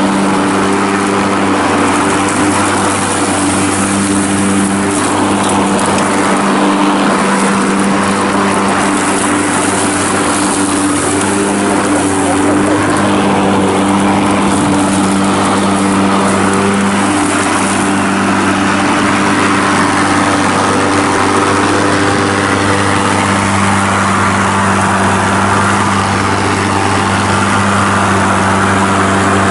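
EGO Power+ 56V cordless electric lawn mower running steadily as it is pushed through grass, cutting: an even motor-and-blade hum over the rush of the blade in the grass.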